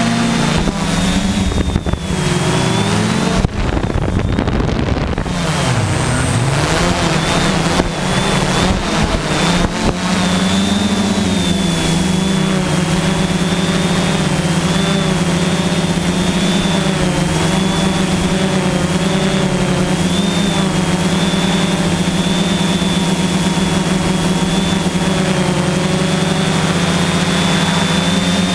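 Quadcopter's electric motors and propellers humming steadily, heard close from the GoPro mounted on the craft, the pitch wavering slightly up and down. A rougher, noisier stretch breaks in about three to five seconds in.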